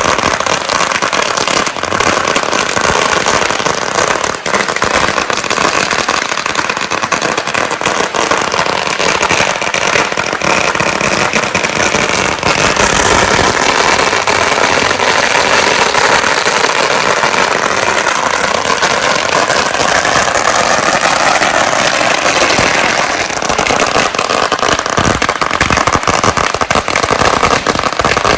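Dense, continuous crackling and popping of Lunar New Year fireworks, loud throughout with many rapid sharp reports.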